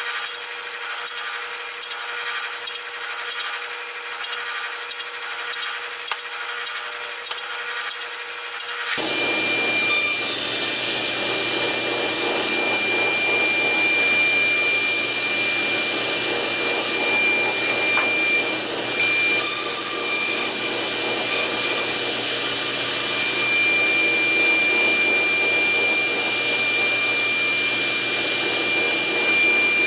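Table saw running, its blade giving a steady high whine over the noise of the cut as purpleheart strips are fed through on a sled. For the first several seconds, before a sudden change, a different machine is heard running with a hiss that pulses about one and a half times a second.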